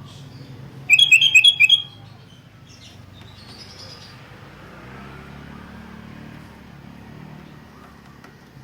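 Sooty-headed bulbul (kutilang) calling: a quick, loud run of about eight clear notes that alternate between two pitches, about a second in and lasting under a second. A faint low steady hum sits beneath it.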